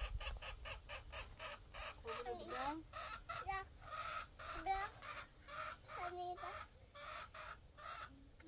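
Chickens clucking: a steady run of short clucks, about two to three a second, with a few longer pitched calls among them.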